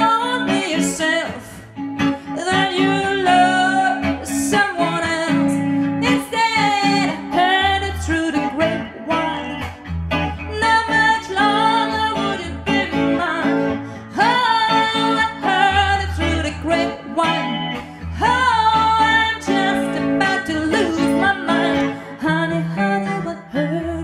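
A woman singing into a microphone over electric guitar accompaniment, in a bluesy duo cover of a soul song.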